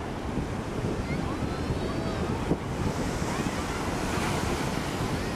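Surf washing up on a sandy beach, under steady wind buffeting on the microphone. A wave rushes in with a louder hiss about three seconds in. Faint distant voices of beachgoers can be heard.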